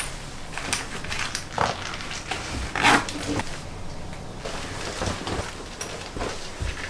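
Irregular knocks and rustling of a person moving about in a small room, with the loudest knock about three seconds in.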